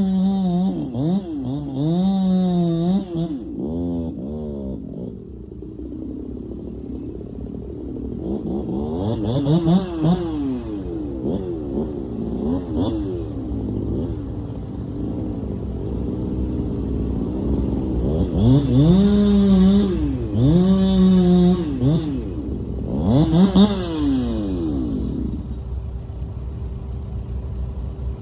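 Chainsaw revving up and down over and over as it cuts into the elm wood, its speed dipping and recovering under load. It eases off to quieter running for a few seconds about five seconds in, and again after about twenty-five seconds.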